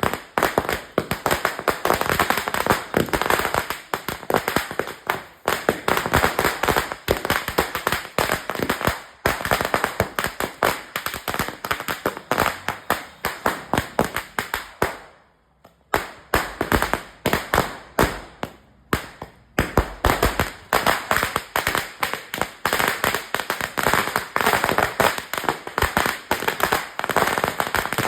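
A 1000-shot Murga-brand firecracker string (ladi) going off: a long, loud, rapid chain of sharp bangs, several a second. The chain breaks off for about a second roughly halfway through, then carries on just as fast.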